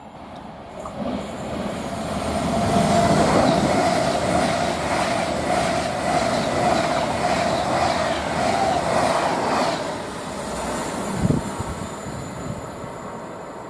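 A train passing at speed on the main line: it builds up, then holds a steady high whine over a regular clatter of wheels over the rails, and fades after about ten seconds. A single knock comes near the end.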